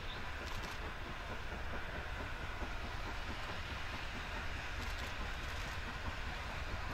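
Metre-gauge YC-class 4-6-2 Pacific steam locomotive and its train working slowly toward the listener: a steady low rumble, with a few brief, faint high-pitched sounds about half a second in and again near five seconds.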